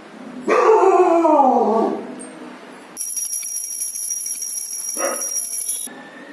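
A long wailing cry that falls in pitch, then a puja hand bell rung rapidly for about three seconds.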